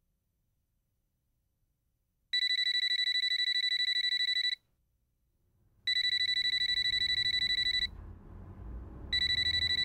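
Near silence, then an electronic telephone ringer rings with a high, fast-warbling trill: two rings of about two seconds each, with the third starting near the end. A low room rumble comes in under the second ring.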